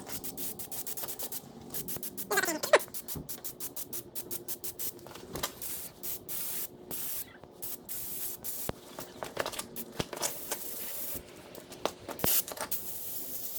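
Aerosol can of Gunk original engine degreaser hissing in many short spurts and some longer sprays onto a grease-caked transmission. A short falling squeak, the loudest sound, comes about two and a half seconds in.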